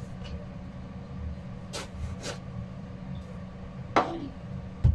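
Chef's knife cutting through a long eggplant onto a wooden cutting board: two light knocks near the middle, a sharp chop about four seconds in and a dull thud near the end, over a steady low hum.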